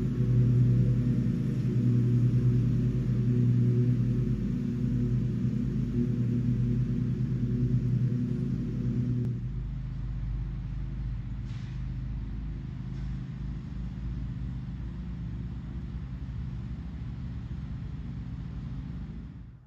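A steady, low engine-like drone. It drops in level about nine seconds in and cuts off abruptly at the end.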